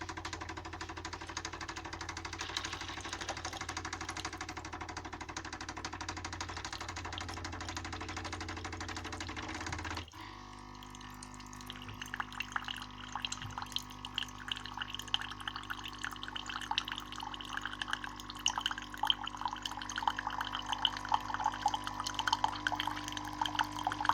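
Tassimo Happy coffee maker running its cleaning cycle: the pump hums steadily as water runs through the cleaning disc into the cup, then cuts off suddenly about ten seconds in. Irregular dripping and trickling follow, growing slowly louder.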